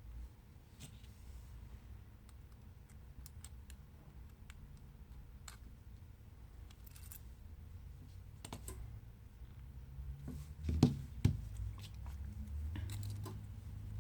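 Light clicks and taps of small tools and phone parts being handled during a smartphone teardown, with two louder knocks close together about eleven seconds in.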